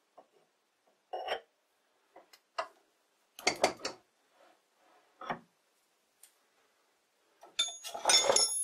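Light metal clicks and knocks as a steel bar is handled and seated between the centers of a bench lathe, then a louder clatter of metal on metal with a ringing clink near the end.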